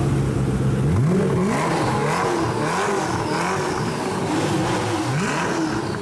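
Koenigsegg Agera's twin-turbo V8 idling steadily, then revved over and over from about a second in, its pitch climbing and falling in quick waves about eight times.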